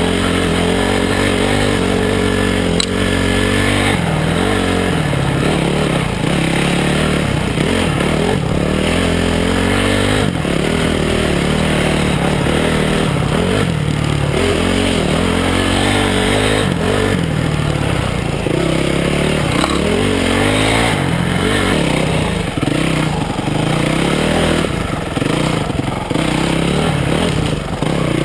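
Honda CRF250X dirt bike's single-cylinder four-stroke engine running under way, its revs rising and falling again and again as the throttle is worked on and off along a twisting trail.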